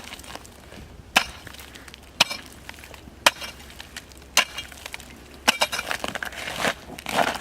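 Steel pickaxe striking and chipping thick ice over concrete, sharp blows about one a second, some with a short clinking ring as ice splinters and breaks away.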